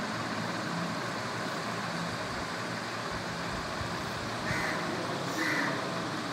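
Steady background noise with a low hum, and two short higher-pitched sounds about four and a half and five and a half seconds in.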